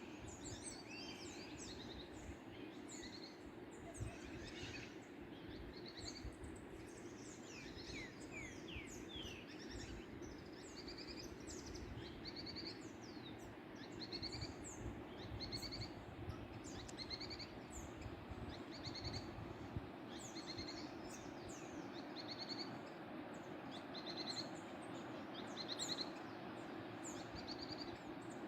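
Several birds singing and chirping over the steady rush of a waterfall. In the second half, one bird repeats a short, quick trill every couple of seconds.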